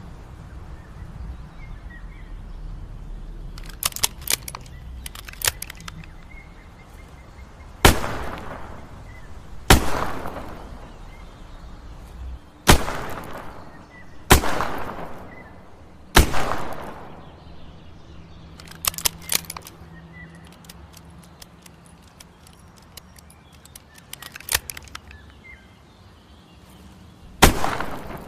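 Smith & Wesson 360J .38 Special revolver firing: five shots about two seconds apart, each ringing out and fading, then one more shot some ten seconds later. Short clusters of light clicks come in the gaps between.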